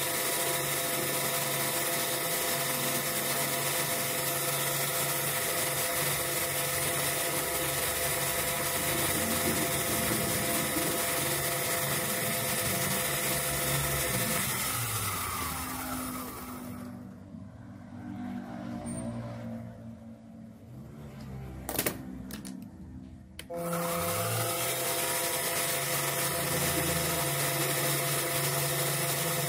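Small benchtop metal lathe running with a steady motor whine. About fifteen seconds in it winds down with falling pitch to a quiet stretch, then there is a click. Near twenty-four seconds it starts again and spins up to the same steady whine.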